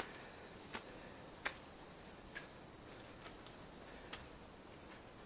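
A steady, high-pitched chorus of tropical forest insects, with a few faint scattered clicks of footsteps on the dirt trail.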